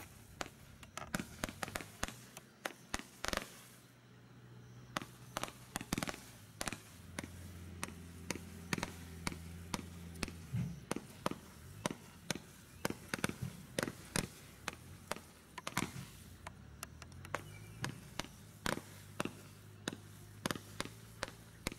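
Consumer firework barrage cake from a Bright Star Strike Force barrage pack firing shot after shot, a sharp irregular string of bangs at roughly two a second, sometimes in quick clusters.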